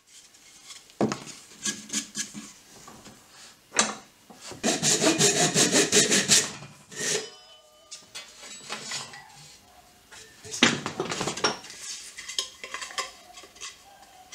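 Japanese pull saw cutting through a pallet-wood board in quick, rasping strokes, one dense run of about two seconds in the middle and shorter runs later. Knocks and clatter of wood pieces being handled in between.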